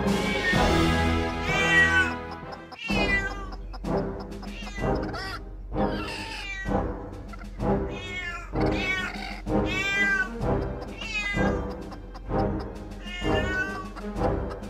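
A string of cat meows, roughly one every three quarters of a second, over background music, which cuts out briefly about three seconds in.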